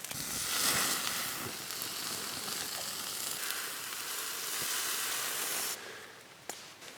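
New York steak sizzling on sticks laid directly over hot wood coals in a folding Firebox stove, a steady fat-spitting hiss that drops away sharply about six seconds in.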